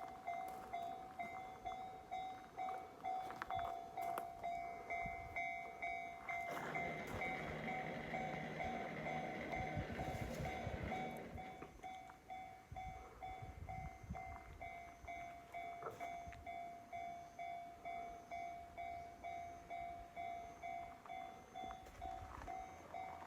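Japanese level-crossing warning bell ringing steadily, about two dings a second. About six seconds in, an E233-series electric train passes over the crossing for about five seconds, louder than the bell, then the bell rings on alone.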